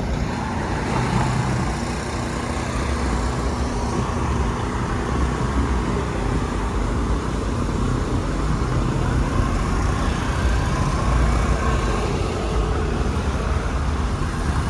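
Cars running and moving around, a steady traffic rumble heaviest in the low end.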